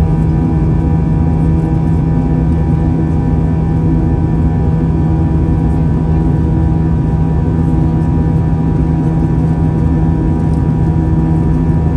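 Airbus A320's jet engines and airflow heard inside the cabin in flight: a loud, steady drone with a low hum and several held tones above it, unchanging throughout.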